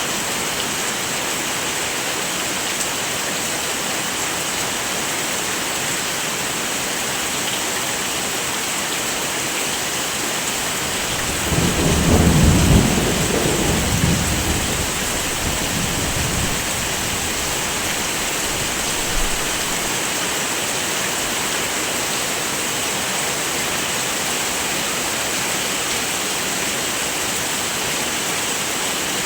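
Heavy rain falling steadily, an even hiss. About twelve seconds in, a roll of thunder rumbles low for several seconds and fades.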